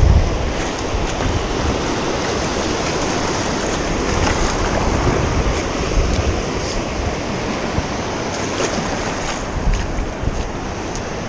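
Ocean surf washing onto the beach in a steady rush, with wind buffeting the microphone in low rumbling gusts near the start.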